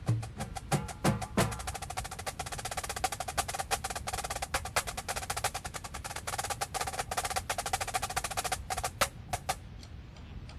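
Marching drumline playing: a few lower drum hits in the first second and a half, then a long run of fast, even snare stick strokes that stops abruptly near the end.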